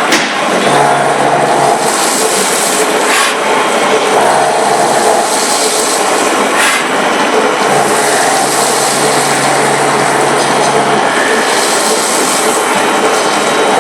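Milling machine cutting the outlet port in a VP-60 drilling swivel body: a loud, steady machining noise over a low spindle-drive hum. Short sharp knocks or scrapes come through about three seconds in and again about six and a half seconds in.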